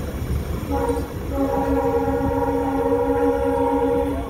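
Locomotive air horn sounding a chord of several steady tones: a short blast about a second in, then a long held blast that stops just before the end, over a low rumble of the running train.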